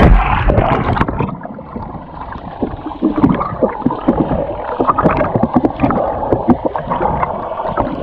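A loud splash as someone jumps into a waterfall's rock pool, then muffled water sloshing and gurgling close to the microphone.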